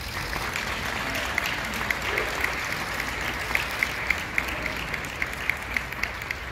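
Audience applauding, with a few sharp, close claps standing out from the steady clapping.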